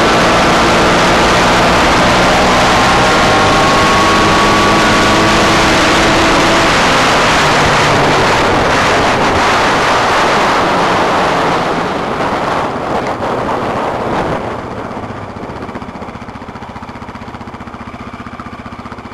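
Sport ATV engine running hard at speed under a loud rush of wind, then easing off between about twelve and fifteen seconds in and settling to a steady low idle.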